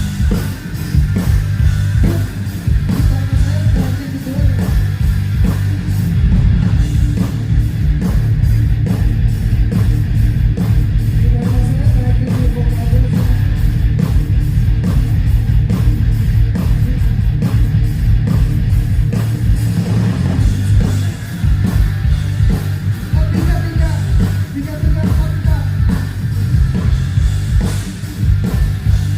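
Live heavy metal band playing loud: distorted electric guitar and bass over fast, dense drum-kit hits.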